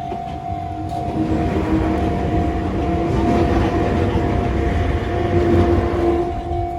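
Train running past: a low rumble that swells about a second in, over a steady high tone.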